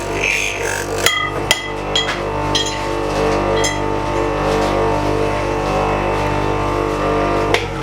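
Background music with steady held notes, with about six sharp taps or clicks over it, the last near the end.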